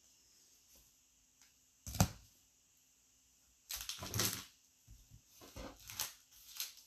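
Baseball trading cards handled on a tabletop: a sharp knock about two seconds in, then a run of clicks and rustles as a stack of cards is picked up and set down.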